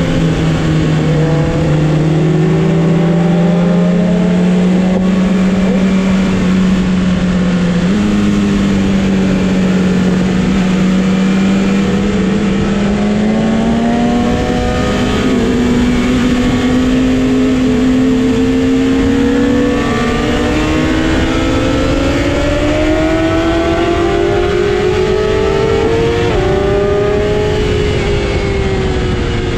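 Sport motorcycle engine running under way in a steady pull, heard from on board. Its note climbs slowly, steps up slightly about eight seconds in and drops near the end.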